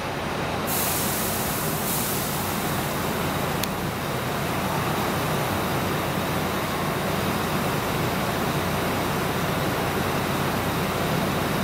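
Steady rumble and hiss of a Scania K410 coach pulling away through a coach station, blended with traffic noise, with one brief click a few seconds in.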